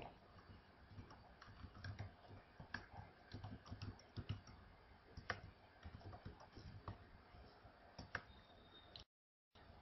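Faint computer keyboard typing: irregular key clicks in short clusters as words are typed, with one sharper key strike about five seconds in.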